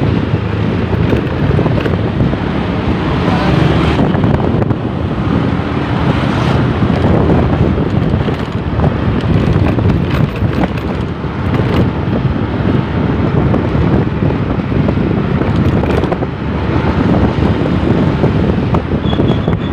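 Wind buffeting the microphone on a moving motorcycle, over the steady running of the bike's engine and road noise.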